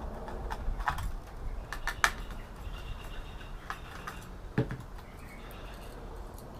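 Scattered light clicks and taps of small circuit boards and slot-in cards being handled, a few sharp ticks spread irregularly, over a low steady hum.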